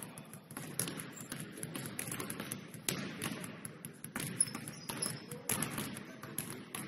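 Several basketballs being dribbled on a hardwood gym floor: uneven, overlapping bounces, a few a second, ringing in the large hall.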